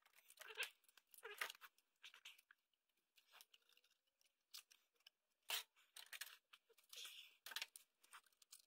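Scattered clicks and scrapes of small metal and plastic computer parts being handled at a workbench: a screwdriver working a screw out of a PC motherboard, and a loosened part lifted off and turned in the hand.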